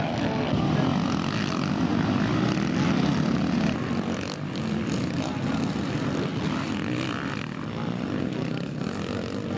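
Motocross bike engines revving hard, several at once, a buzzing drone with wavering pitch. A little quieter after about four seconds.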